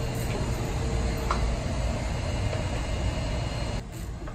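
Steady low background rumble with a faint click about a second in; the rumble drops in level near the end.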